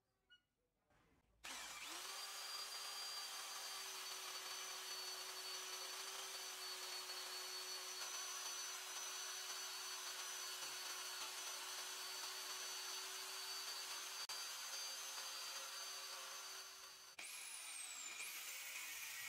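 Drill press motor switches on about a second and a half in and runs steadily with a hum and high whine while a twist bit drills into a steel plate. Near the end it gives way to an angle grinder with a cut-off wheel, its whine rising steeply as it spins up.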